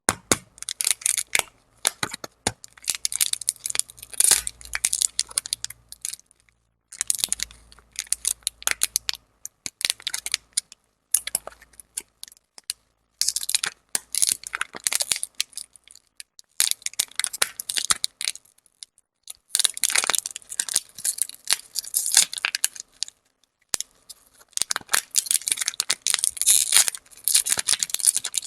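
Lollipop ASMR sounds: crinkly crackling and sharp clicks in bursts of a second or two, separated by short pauses.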